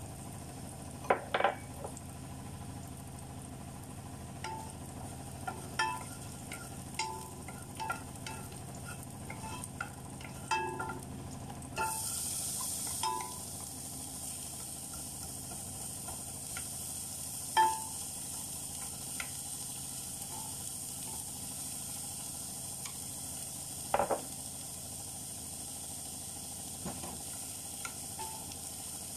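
Wooden spatula stirring food in a frying pan, knocking and scraping against it now and then, with a few sharp knocks. About twelve seconds in, food tipped from a plate into the hot pan sets off a steady sizzle that keeps going.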